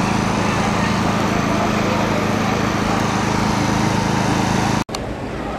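A fire engine's diesel engine running steadily at close range, with a hiss over it. It cuts off abruptly near the end.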